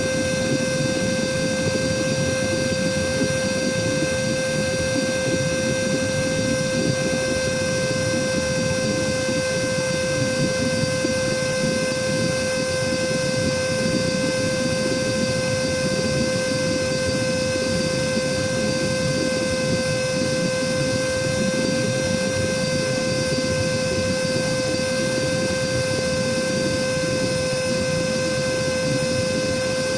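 Cordless vacuum cleaner motor running free with no load, a steady whine over rushing air that does not change.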